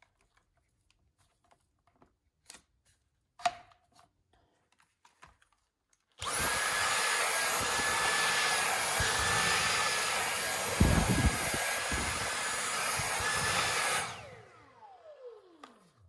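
Dyson V8 cordless vacuum, used handheld with a nozzle tool: a few handling clicks, then about six seconds in the motor switches on and runs steadily with a high whine while the nozzle works over stair carpet. Near the end the trigger is let go and the motor winds down with a falling whine.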